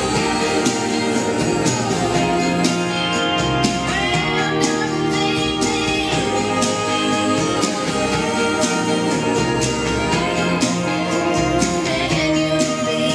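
Pop song with a singer's voice over a steady beat and a bass line.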